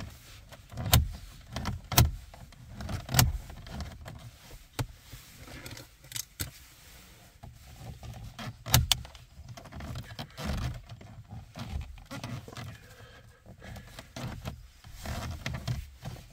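Plastic dashboard trim of a 2015 Hyundai Sonata being pried loose by hand: irregular clicks, snaps and knocks of the trim clips and pry tool, several sharp ones standing out.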